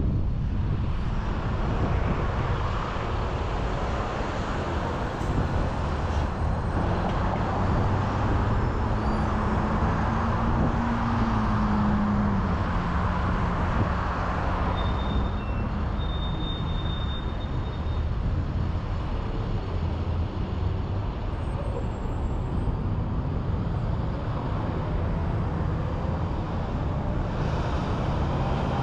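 Steady road noise of a car driving through traffic: tyres on pavement and engine, with a low hum that stands out briefly around ten seconds in.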